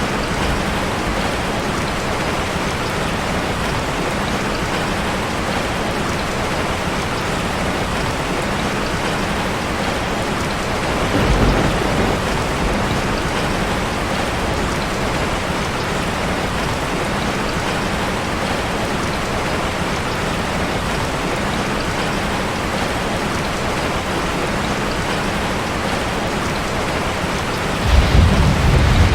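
Steady rain falling on a street. A brief low rumble of thunder comes about eleven seconds in, and a louder one near the end.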